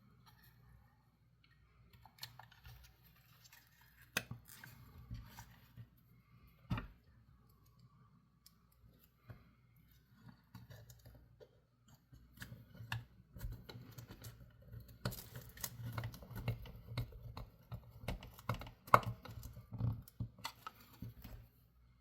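Scattered small clicks, taps and scrapes of hands handling a plastic toy's opened battery compartment and circuit board. The clicks are sparse at first and grow busier about halfway through, over a faint low hum.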